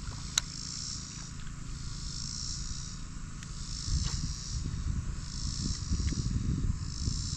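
A chorus of insects buzzing high in pulses about a second long, one every second and a half or so. A sharp click about half a second in, and a low rumble underneath that grows stronger in the second half.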